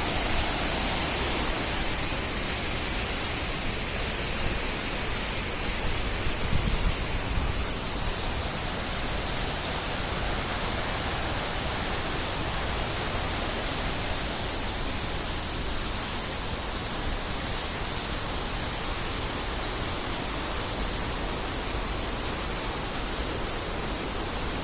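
Rushing water running strongly: a steady, even hiss. A few low rumbles come through about six to seven seconds in.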